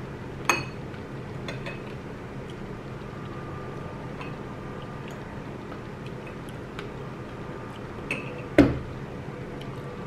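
Metal spoon clinking against a ceramic bowl of fruit in coconut water: a sharp clink about half a second in, a few light taps after it, and a louder knock near the end.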